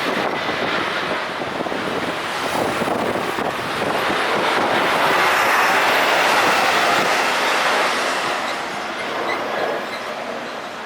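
Airbus A320 jet engines at takeoff thrust, a loud rushing noise that swells to a peak about six seconds in and then fades.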